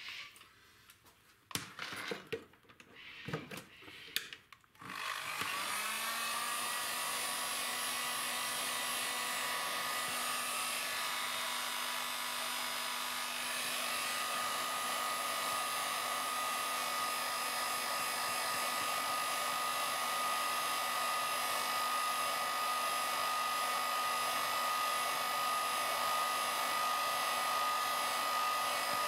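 A few knocks of handling, then about five seconds in an electric hot-air blower switches on: its fan whine rises as it spins up, then it runs with a steady blowing noise, heating the pad to soften the double-sided tape under the piezo sensor.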